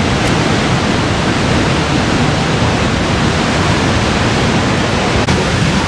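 Steady rush of water plunging over Niagara's Horseshoe Falls, a dense even noise with no breaks.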